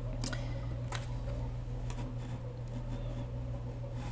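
Room tone with a steady low electrical hum and a few short, faint clicks, about a second apart near the start.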